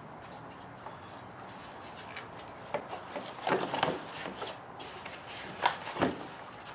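Ford Edge side mirror assembly parts being handled during disassembly: a short spell of rubbing and clicking about halfway through, then two sharp knocks near the end.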